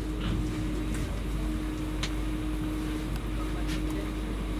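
Steady in-carriage hum of a Class 390 Pendolino electric train: a constant electrical drone over a low rumble, with a few faint clicks.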